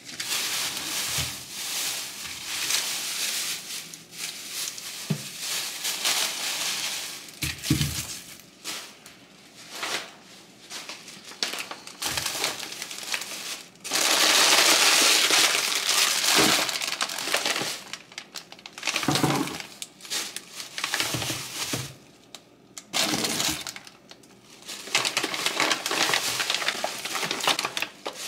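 Thin plastic grocery bags rustling and crinkling in irregular bursts as groceries are pulled out, the longest and loudest stretch about halfway through. A few soft knocks come between the bursts as items are set down on the counter.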